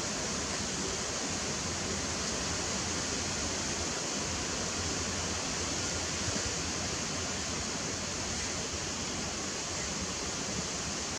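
A steady, even hiss that is brightest in the upper range, with no breaks, calls or distinct events.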